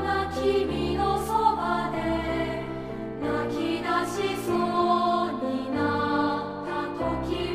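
Background music: a choir singing a slow song with held notes over changing chords.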